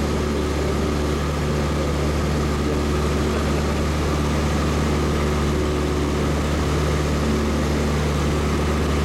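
Light aircraft's engine and propeller running at a steady drone, heard from inside the cabin.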